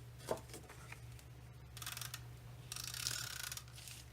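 Adhesive tape runner rolled along card stock: a light tap, then a fine rapid clicking whir about two seconds in, running into a smoother hiss as the tape is laid down.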